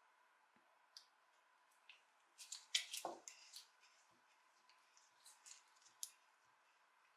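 Faint handling sounds of a restored steel adjustable wrench in gloved hands: scattered small metallic clicks as the sliding jaw is run open along its threaded screw. A brief cluster of louder clicks with a soft knock comes about three seconds in.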